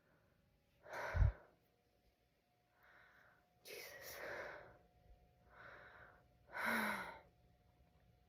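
A woman's heavy breathing and gasps as she works up to a sneeze, with a short sharp burst about a second in and a loud gasp near the end.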